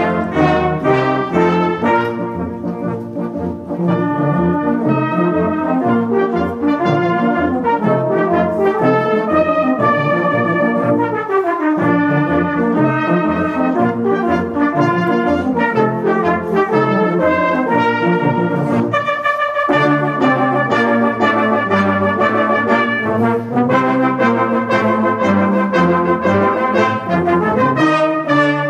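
British-style brass band playing a piece in full harmony: cornets, tenor horns, euphoniums and trombones in sustained chords over a pulsing bass line.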